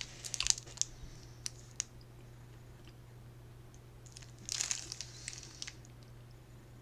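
Plastic chocolate-bar wrapper crinkling as it is handled and opened, in scattered crackles over the first two seconds and a denser burst about four and a half seconds in. A faint steady hum sits underneath.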